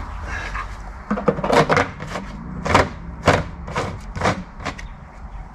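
A run of sharp plastic knocks and scrapes, about eight in three and a half seconds, as the filler cap is handled and screwed onto the tank of a Ryobi backpack sprayer.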